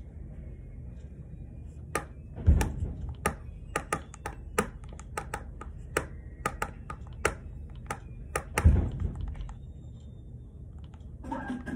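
Irregular sharp clicks and taps, a few a second, from hands working at a desk. Two heavier thumps land about two and a half seconds in and near the end.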